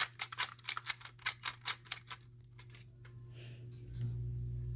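Plastic toy gun's mechanism clicking as it is worked, about five sharp plastic clicks a second for the first two seconds, like its barrel being turned notch by notch. A low steady hum comes in near the end.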